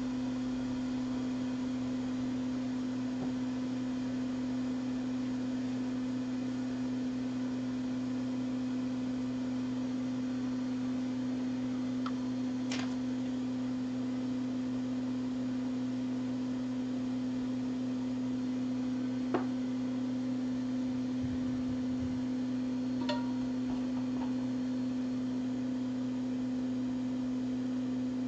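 A steady electrical hum from workbench equipment, one constant low tone with fainter overtones, broken only by a few faint small clicks.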